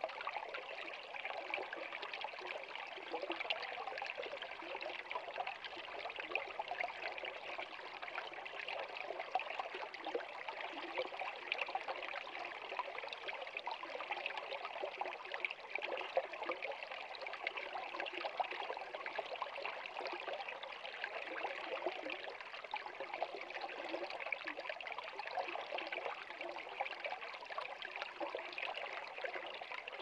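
Small shallow stream trickling and splashing over a low rock step into a pool, a steady unbroken babble of running water.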